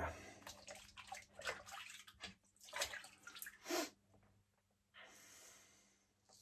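Water splashing in a bathroom basin in several short bursts, then about five seconds in a single scratchy stroke of a double-edge safety razor (Executive Shaving Outlaw, Bic Chrome Platinum blade) cutting through lathered stubble, lasting just over a second.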